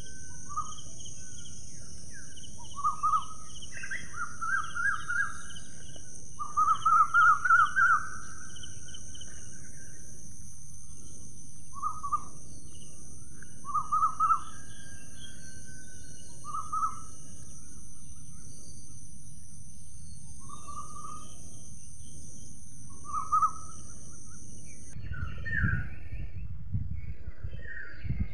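A bird giving short trilled calls every second or two, the longest and loudest about a quarter of the way in, over a steady high-pitched insect drone that stops about three-quarters of the way through. A few low thumps near the end.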